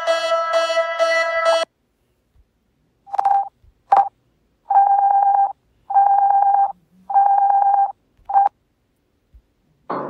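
An electronic tune breaks off, and after a pause a telephone sounds a run of single-pitch beeps: two short ones, three longer ones about a second apart, and a last short one.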